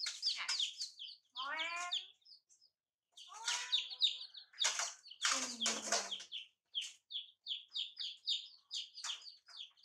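Baby chicks peeping, a quick run of short high peeps at about four a second that fills the second half. Earlier, a few louder, harsher calls and noisy bursts break in.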